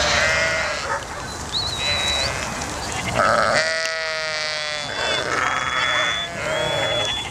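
A flock of sheep bleating, several animals calling one after another, with one long, loud bleat about halfway through.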